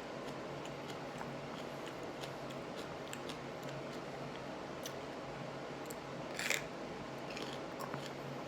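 Close mouth sounds of someone chewing raw serrano peppers: scattered small wet clicks and one louder crunch about six and a half seconds in, over a steady low hum.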